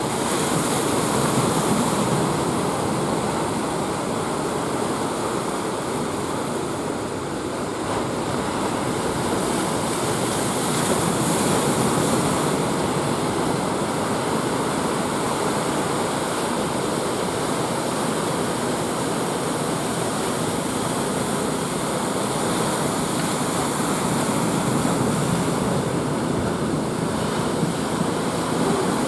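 Ocean surf breaking on a beach: a continuous wash of waves that swells louder twice, near the start and about ten seconds in.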